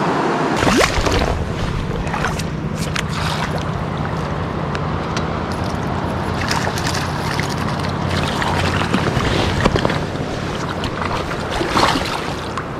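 Fast, shallow river riffle rushing close to the microphone, with splashes and knocks from the camera being handled at the water's surface. A low rumble sets in about half a second in.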